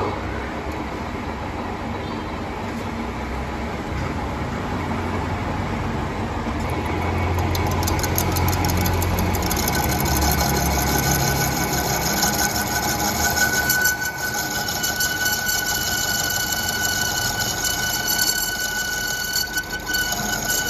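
Metal lathe running with a steady machine hum. About a third of the way in, a higher, fast rhythmic scraping joins it, and about two-thirds in a steady high whine comes in.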